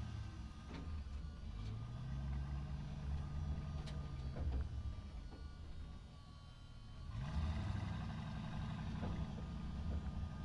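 Truck engine running as the truck drives through a parking structure. The engine pitch rises and falls once, eases off about six seconds in, then climbs again as the truck pulls away. A few sharp knocks or clicks are scattered through.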